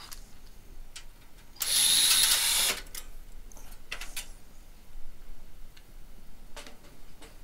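Cordless drill-driver runs once for about a second with a high whine, backing out a screw from the power module's metal side cover. A few short clicks and knocks follow as the sheet-metal panel is lifted off.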